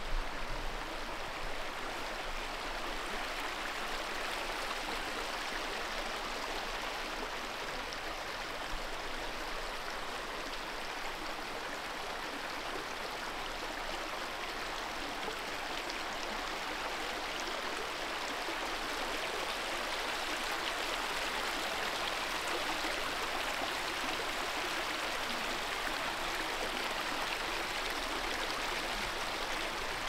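The River Etherow running, a steady rush of flowing water.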